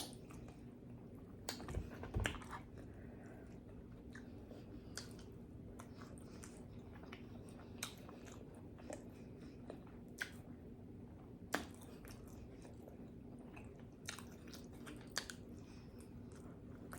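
A person chewing pizza close to the microphone: sparse, irregular wet mouth smacks and clicks, loudest about two seconds in and near the middle, over a faint steady hum.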